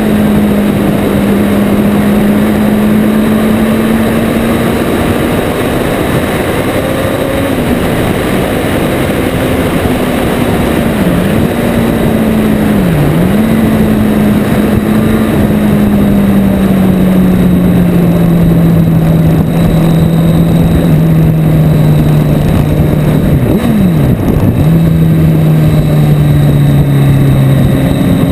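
Motorcycle engine running at a steady cruise, heard from an onboard camera under heavy wind and road rush. The engine note dips briefly and recovers twice around the middle and once more near the end, then settles lower.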